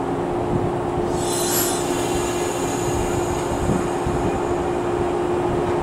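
Shinano Railway 115 series electric train standing at the platform before departure, its onboard equipment giving a steady hum. About a second in a loud hiss of air sounds and fades over the next two seconds, typical of the brakes being released.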